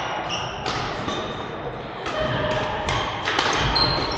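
Badminton court play in a reverberant sports hall: several sharp hits and short high shoe squeaks over a busy background din.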